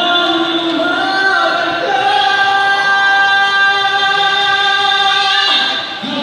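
A male singer holds one long, high sung note into a handheld microphone over a backing track, amplified through the stage sound system; the note breaks off near the end.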